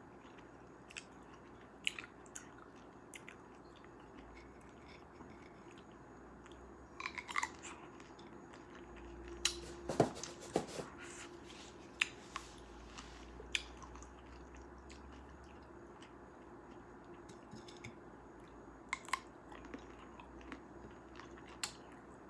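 Close-miked mouth sounds of someone eating cherries: scattered sharp, wet clicks of biting and chewing. They come thickest around the middle.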